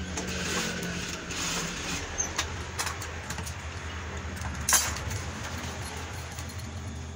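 Industrial sewing machine's motor humming steadily, with light clicks and rustling as the strap is handled at the needle, and one sharp click about four and a half seconds in.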